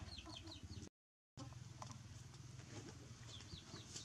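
Chickens peeping in the background: quick runs of about four short, high, falling peeps near the start and again near the end, over a faint low hum. The sound drops out completely for about half a second, about a second in.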